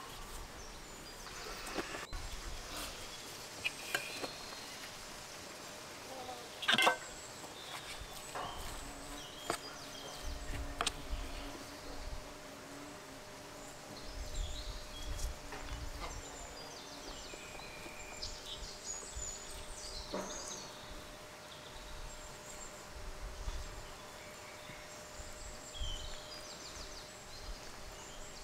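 Outdoor ambience with small bird chirps, over light handling sounds of food preparation: a wooden rolling pin knocking on a wooden board and a metal spoon scraping meat filling onto dough, with one sharper knock about seven seconds in.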